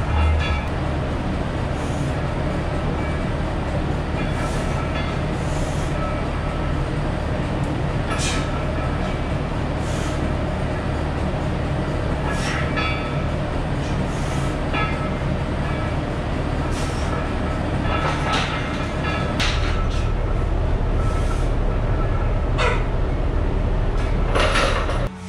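Large garage drum fan running, a steady loud whoosh with a low hum. About ten short clicks or clinks sound over it. About two-thirds of the way through, the noise steps up a little and gets deeper.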